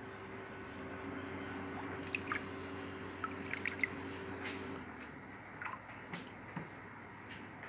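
Water dripping and splashing back into a stainless-steel water bath tank as a perforated test-tube rack is lifted out, with a scatter of small drops and light metallic clinks. A steady low hum runs underneath and stops about two-thirds of the way through.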